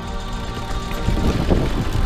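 Music with steady sustained tones, under the rattle and jolting of a mountain bike ridden over a rough, rocky trail, with wind buffeting the microphone. The jolts get stronger about a second in.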